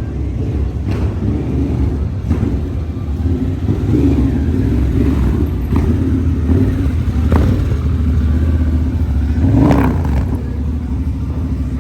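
Motorcycle engines running with a steady low rumble, with a few sharp clicks along the way.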